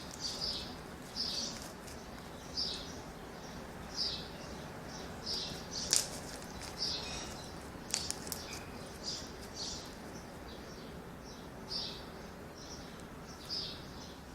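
Homemade slime being kneaded and squeezed by hand as borax activator is worked in, giving short wet squelches about once or twice a second, with a couple of sharper pops about six and eight seconds in.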